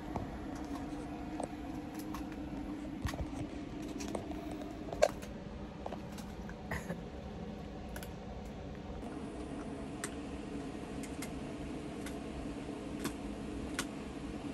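A dog gnawing on a chew: irregular small clicks and crunches, with one sharper crack about five seconds in, over a steady low hum.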